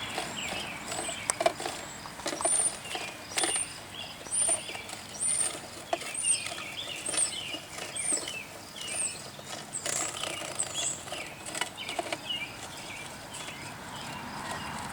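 Birds chirping, one repeating a short high note about twice a second, mixed with other chirps and a few sharp clicks or taps.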